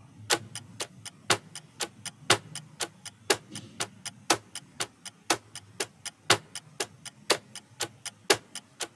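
Clock-ticking sound effect of a quiz countdown timer, counting down the seconds left to answer: even, sharp ticks about four a second, with a stronger tick on each whole second.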